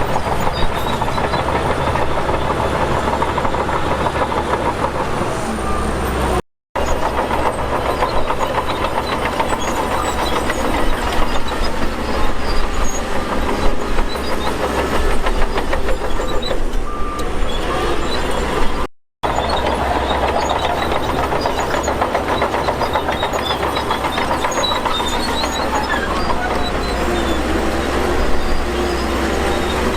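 Bulldozer at work: its diesel engine running with a fast, continuous metallic clatter from the tracks. The sound drops out briefly twice.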